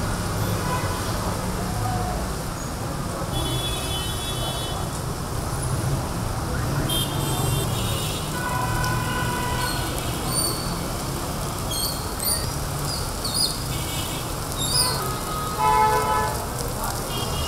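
Steady noise of heavy rain and wet street traffic, with short vehicle horn toots every few seconds, the loudest near the end.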